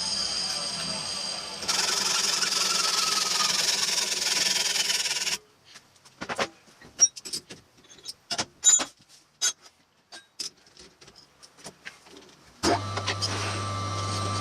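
Metal lathe running and cutting stainless steel bar, louder once the tool bites, then shut off abruptly; a string of sharp clicks and metallic knocks follows as the work is handled, and near the end the lathe motor starts again with a steady hum.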